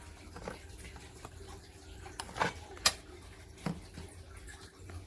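Cordless phone handset being handled: about six scattered clicks and taps, like buttons being pressed and plastic knocking, over a low steady hum.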